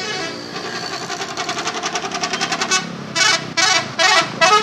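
A bus's 'telolet' horn, a multi-tone musical air horn, playing a fast trill of about ten notes a second for nearly three seconds, then four short, loud blasts.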